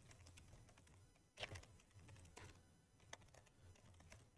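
Faint keystrokes on a computer keyboard as a terminal command is typed: a few scattered soft clicks over a low steady hum.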